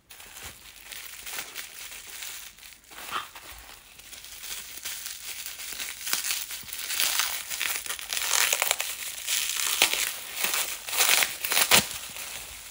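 Crinkly packaging wrap being handled and pulled off by hand to unwrap a nail polish bottle: a continuous crackling that gets louder in the second half.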